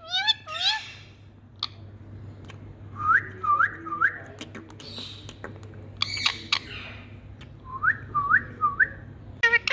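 Pet parrot whistling: two sets of three short rising, hooked whistle notes, with quick runs of rising chirps at the start and end and a couple of harsh squawks in between.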